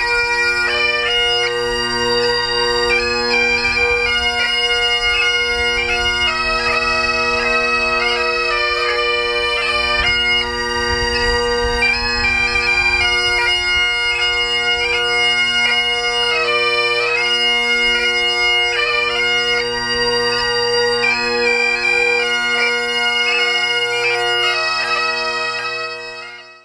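Highland bagpipes playing a tune: a melody on the chanter over steady, unbroken drones, fading out near the end.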